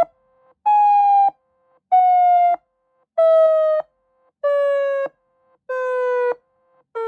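Electronic warning tone from a Federal Signal UltraVoice+ Giant Voice controller, sounding as a run of pulsed blasts about two-thirds of a second long with equal gaps. Each blast sags slightly in pitch, and the pitch steps lower from one blast to the next. A faint steady hum sits under the gaps.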